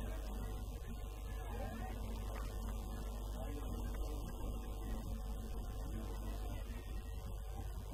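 Steady low electrical hum, with faint indistinct voices in the background.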